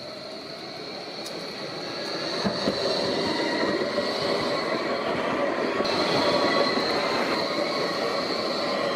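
Berlin Bombardier Flexity low-floor tram approaching on its rails and passing close by. It grows louder over the first few seconds, then runs steadily past with a rolling rumble and a steady high-pitched whine.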